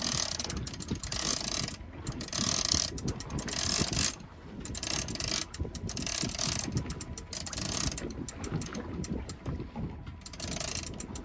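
Big-game conventional fishing reel under load from a heavy fish, ratcheting and whirring in repeated spurts of about half a second to a second while the rod is pumped, with wind on the microphone.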